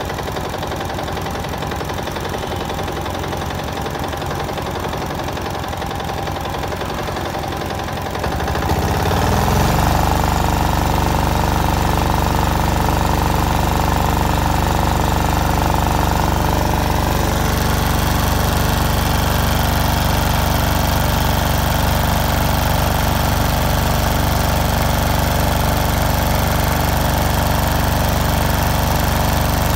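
Yanmar L60 single-cylinder air-cooled diesel engine running on test at a lower speed, then speeding up about nine seconds in and running on steadily, louder, at high speed.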